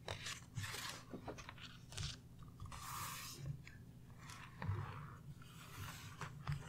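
Paper pages of a small hardback book being turned and handled close up: several soft rustling swishes, with a few light knocks of the book and hands against the table.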